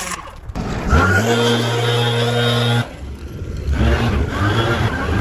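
Small gas engine of lawn equipment revving up about a second in and running steadily at high speed, breaking off abruptly near the middle and revving up again toward the end.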